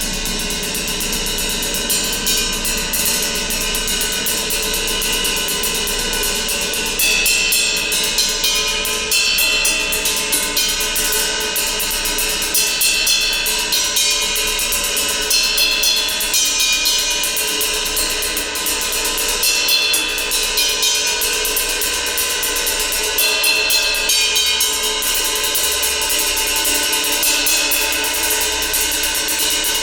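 Gong kept sounding in a continuous dense wash: many overlapping ringing tones with a bright metallic shimmer, holding an even loudness.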